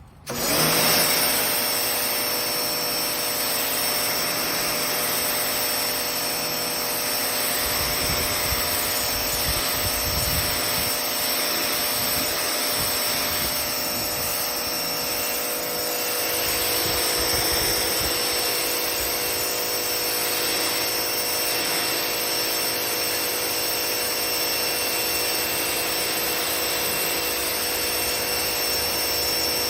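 Pressure washer running and spraying: a steady, loud hiss of the water jet with a thin high whine from the machine throughout.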